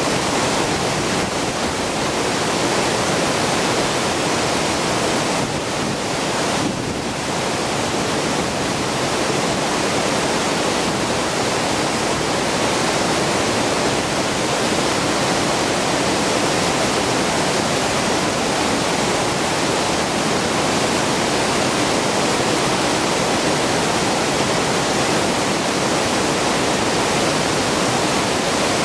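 Deerfield River water pouring over the crest of a low dam's spillway and crashing onto the rocks below: a loud, steady rushing roar of falling water.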